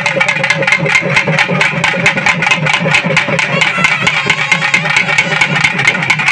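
Festival drums beating fast and evenly, about six or seven strokes a second, over a sustained droning tone.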